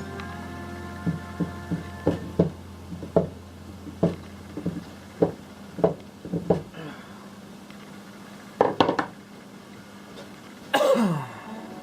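Sharp clinks and knocks of metal parts and tools from a rusty hand-crank grinder being taken apart, irregularly spaced, with a louder sliding sound falling in pitch near the end.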